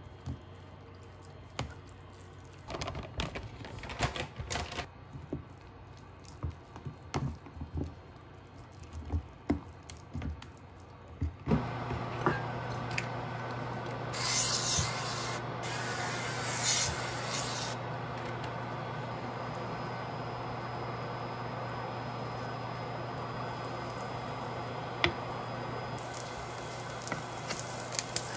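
A spoon scraping and knocking in a plastic container as kimchi pancake batter is mixed. About 11 seconds in a steady low hum comes on; soon after, oil spray hisses onto the empty frying pan in two spells, and near the end kimchi pancakes sizzle in the pan.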